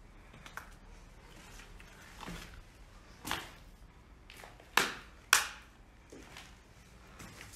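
A few sharp knocks and scuffs against a faint hiss, the two loudest about half a second apart near the middle.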